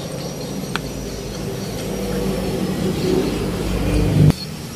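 A steady low engine rumble with a faint hum, and a single light metallic click about a second in. The sound cuts off suddenly near the end.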